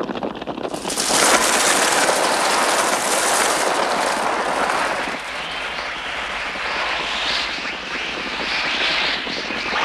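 A sudden dense rush of wings and noise from a large flock of crows taking off, which rises sharply about a second in and stays loud. Shrill wavering cries are mixed in during the second half. The film's bird sounds are electronically made on the Mixtur-Trautonium.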